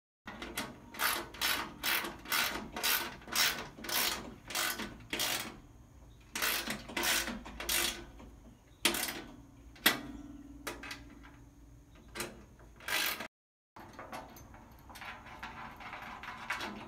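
Hand socket ratchet clicking in quick back-and-forth strokes, about two a second, as nuts are run down on the bolts of a steel plow side wing. There are two runs of strokes, then a few separate metal knocks.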